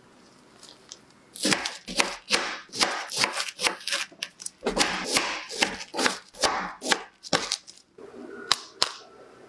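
Knife cutting through a frozen block of ice cream on parchment paper: a quick run of crunchy slicing strokes, about two a second, starting about a second and a half in. Two light knocks follow near the end.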